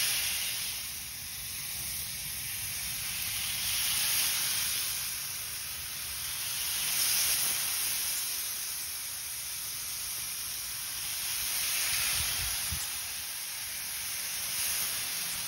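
Seasoned pork steaks sizzling on a hot gas flat-top griddle, a steady hiss that swells every few seconds as more raw steaks are laid on.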